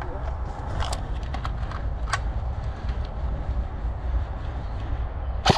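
Outdoor movement through tall weeds and brush during an airsoft game: a steady low rumble with scattered sharp clicks and rustles. Near the end come two loud sharp cracks in quick succession.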